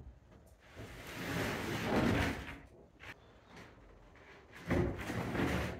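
A cut sheet of OSB board sliding and scraping as it is pushed into place: a long scrape building up about two seconds in, then a second, sudden, heavier scuff near the end.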